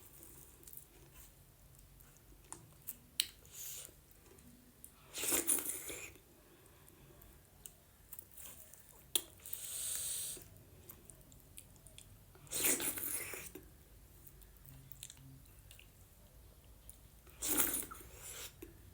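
Close-miked eating of white-corn dhido (a thick corn-flour porridge): quiet chewing and small mouth clicks, broken by four louder eating noises a few seconds apart.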